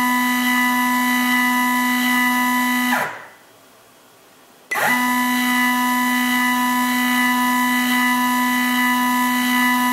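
Stepper motor turning a Sherline rotary table under an electronic divider controller, running with a loud, steady whine. About three seconds in it slows, the pitch falls, and it stops at a division. After a pause of about a second and a half it starts again with a quick rise in pitch and runs steadily, indexing the table to the next division.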